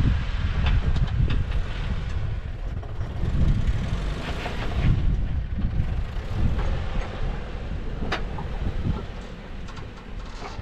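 Off-road vehicle crawling slowly over rock, its engine a low rumble at low revs, with a few sharp knocks, one about eight seconds in.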